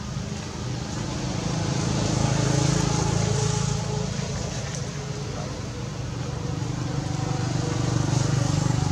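Engine hum of a motor vehicle running, swelling about two seconds in and again near the end.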